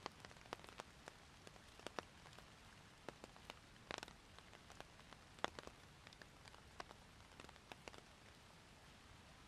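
Rain falling steadily as a faint hiss, with scattered drops tapping sharply close by at irregular moments; the taps thin out near the end.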